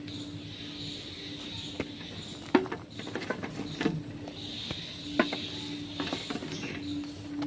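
A chalk heart being crushed and crumbled, making scattered sharp crunches and cracks that begin about two seconds in. A faint steady hum runs beneath.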